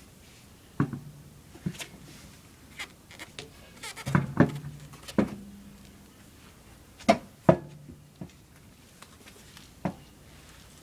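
A dozen or so sharp metallic clanks and knocks at irregular intervals, several leaving a short low ring, from tools and wheel parts being handled during a tyre change. The loudest is a pair of knocks about seven seconds in.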